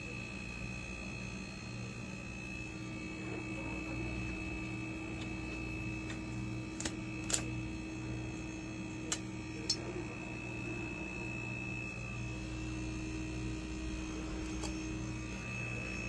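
Refrigerator compressor running: a steady low hum with a thin high whine over it. A few sharp clicks come in the middle.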